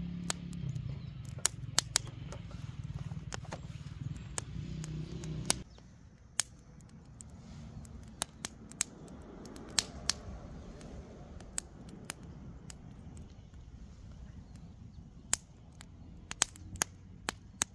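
Small fire of thin wooden kindling crackling, with sharp, irregular pops scattered throughout. A low steady hum runs under the first few seconds and stops abruptly.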